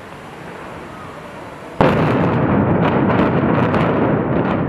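Controlled demolition of high-rise towers by explosive charges: a faint steady hiss, then about two seconds in a sudden loud blast that carries on as a continuous rumble with many sharp cracks through it as the towers come down.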